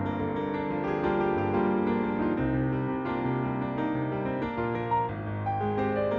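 Garritan CFX virtual piano, a sampled Yamaha CFX concert grand, playing full chords and a melody over a moving bass line.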